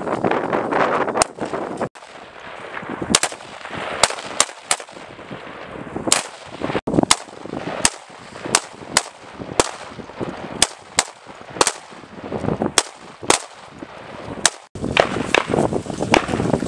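5.56 mm M4 carbine firing single shots in an irregular string, about two dozen over some twelve seconds, often two in quick succession.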